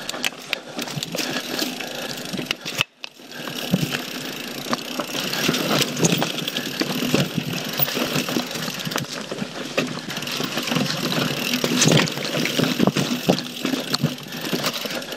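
Trail noise from a YT Jeffsy mountain bike ridden fast down dirt singletrack: tyres rolling over dirt and roots, with constant rattling and rapid knocks from the bike. The sound drops away briefly about three seconds in, then comes back.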